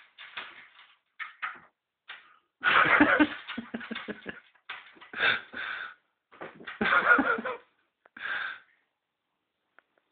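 A cat clawing and scrabbling at wooden wall panelling: irregular bursts of scratching and clicking, with a few heavier thumps about three, five and seven seconds in.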